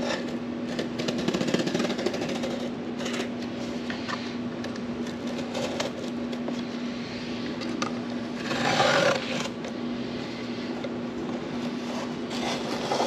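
Utility knife slicing through cardboard: several scratchy cutting strokes, the loudest about nine seconds in, over a steady low hum.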